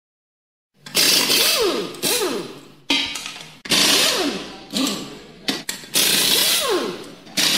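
Loud background music with a driving beat: sharp hits that die away, with repeated falling pitch slides, starting about a second in after silence.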